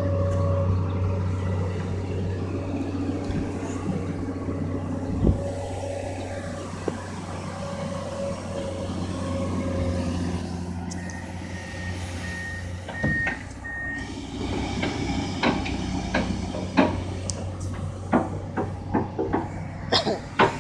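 Komatsu PC200-8MO hydraulic excavator's diesel engine running steadily, with a warning alarm beeping over it. In the second half comes a run of sharp clanks and knocks as the lifting chain, hook and concrete panels are handled.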